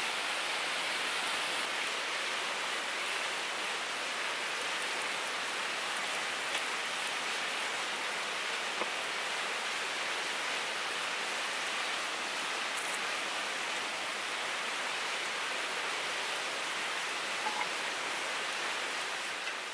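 Steady rushing of a fast river's rapids, with a few faint crackles from a wood fire.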